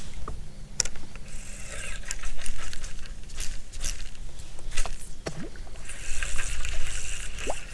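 Scattered clicks and knocks with rustling stretches from fishing tackle being handled in a kayak, a rod and spinning reel being worked, over a steady low rumble.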